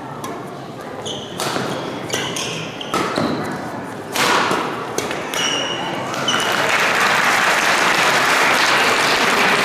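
A badminton rally: sharp racket hits on the shuttlecock and short squeaks of court shoes on the floor mat. About six seconds in, the point ends and the spectators break into steady cheering and applause.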